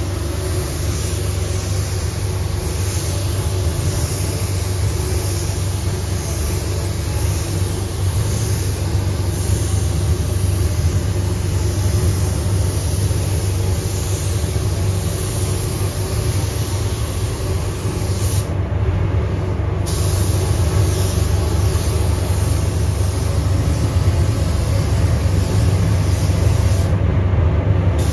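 Compressed-air hiss of a gravity-feed spray gun laying down paint, over the steady low rumble of a downdraft paint booth's airflow. The hiss cuts out for about a second twice, about two-thirds of the way through and again near the end, as the trigger is released.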